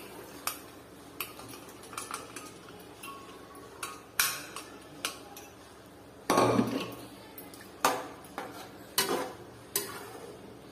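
Boiled black chickpeas are tipped from a steel pot into a steel kadai of fried masala. A metal spatula then clinks and scrapes against the pan, with irregular sharp knocks and one longer, louder burst about six seconds in.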